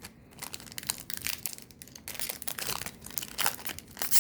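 Trading-card pack packaging being handled and torn open, with irregular crinkling and crackling and a louder rip near the end.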